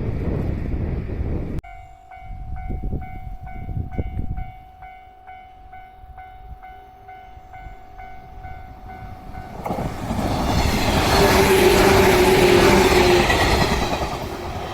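Wind buffeting the microphone, then a Japanese level-crossing warning bell ringing in a steady repeating rhythm. About ten seconds in, a train passes through the crossing, its noise rising to a loud peak with a held tone on top and then fading.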